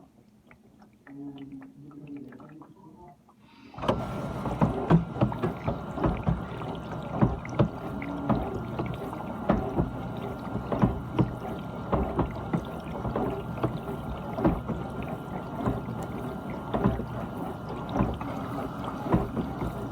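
GE dishwasher's wash pump kicking on about four seconds in, then running steadily: water spraying and splashing around inside the tub, with a steady high hum from the motor.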